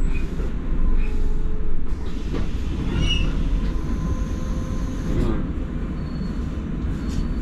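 Cabin of a moving double-decker bus: a steady low engine and road rumble with light rattles and a few faint brief squeaks.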